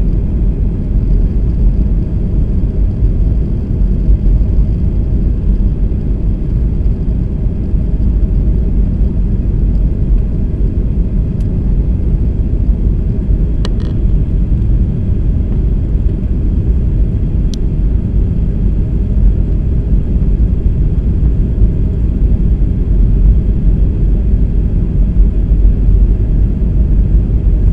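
Steady low rumble inside a jet airliner's cabin on approach: engine and airflow noise, with a few faint clicks.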